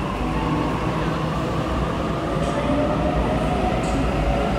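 Sydney Trains Waratah A-set double-deck electric train moving slowly along an underground platform: a steady rumble with a faint motor whine falling slightly in pitch as it slows.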